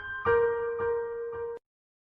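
A few soft piano notes in a slow melody, cutting off suddenly about one and a half seconds in.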